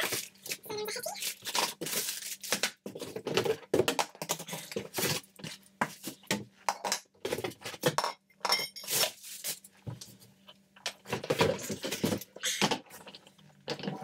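Vacuum cleaner parts being unpacked from a cardboard box: irregular clinks and clanks of metal extension tubes among rustling plastic packaging and cardboard.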